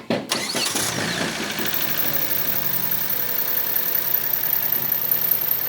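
Jeep engine catching after its last cranking strokes, then settling into a steady idle. It is running on a newly replaced fuel pump.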